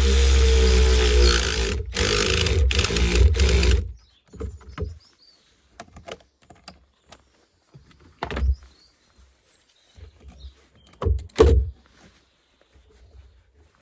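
A power drill/driver runs in a long burst, with two short breaks about two seconds in, and stops about four seconds in. After that come scattered light knocks and clicks of tool handling.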